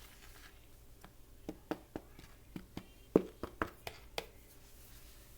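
Close-up mouth sounds of chewing microwaved cornstarch: about ten short, irregular crunching clicks over a few seconds.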